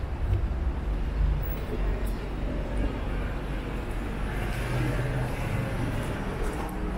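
City street traffic: a steady low rumble of car engines and tyres, with one vehicle's engine hum growing stronger in the second half.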